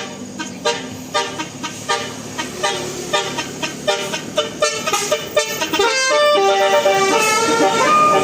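Bus telolet horn, a Basuri multi-tone horn, playing a tune. It sounds a quick run of short staccato notes, then longer held notes that step upward in pitch near the end.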